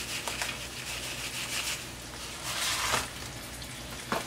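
Panko breadcrumbs poured from a cardboard box into a bowl: a dry rustling pour in two spells, with a short click near the end.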